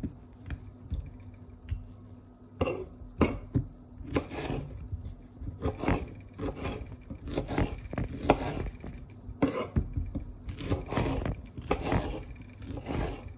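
Kitchen knife chopping vegetables on a wooden cutting board: irregular knocks of the blade on the board, mixed with scraping.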